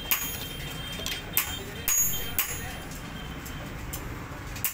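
Several sharp metallic clicks and clinks, unevenly spaced, as Hero Passion Pro clutch plates are pressed by hand into the clutch basket, over a low steady background rumble.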